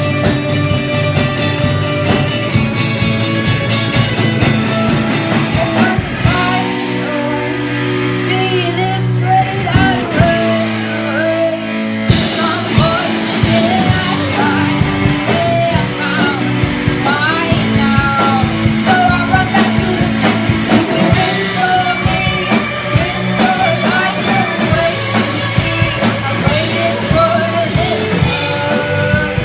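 Live rock band playing with a singer. The lowest notes and the cymbals drop away about six seconds in for a sparser passage, and the full band comes back about twelve seconds in.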